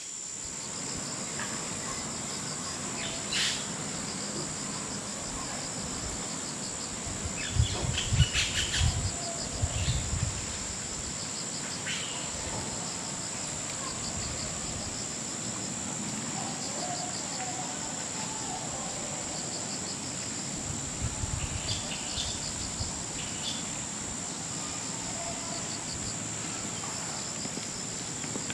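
Crickets chirping in a steady, evenly pulsing high trill. Over it come a few scattered bursts of crackling snaps and thumps, the loudest about a third of the way in, from a western lowland gorilla breaking and chewing leafy twigs.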